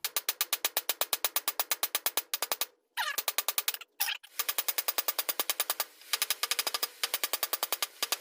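Rapid, evenly spaced hammer blows on steel at the anvil, about eight or nine a second, with two short breaks about three and four seconds in.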